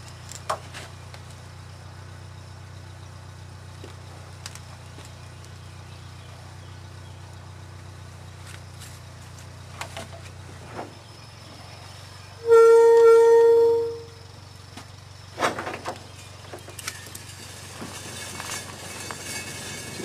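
Kalamazoo rail motorcar's engine idling with a low steady hum, then a horn sounds one blast of about a second and a half, the loudest sound here. Near the end a rising rumble sets in as the motorcar starts rolling on the rails.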